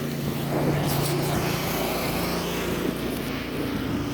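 A vehicle engine running steadily close by on a snowy city street, over a hiss of wind and street noise.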